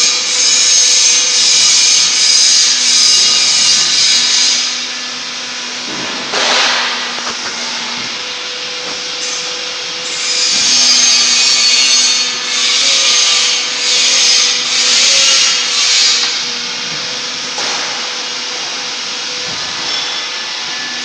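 Machinery on a compressed sawdust block production line: a steady motor hum under two long, loud spells of harsh, pulsing rasping noise, in the first few seconds and again in the middle.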